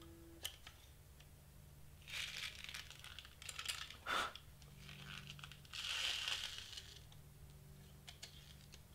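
Cardstock shaker ornament rustling and scraping against a hole punch as it is worked into position, in three short bursts, with a sharp click about four seconds in.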